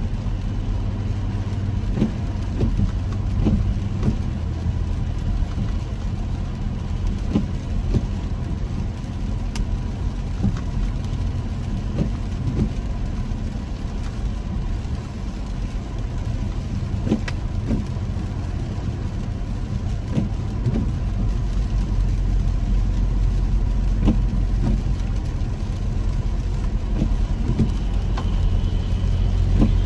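Car cabin on a rainy drive: a steady low rumble of engine and tyres on the wet road, with scattered taps of raindrops hitting the windshield. The rumble grows a little louder near the end.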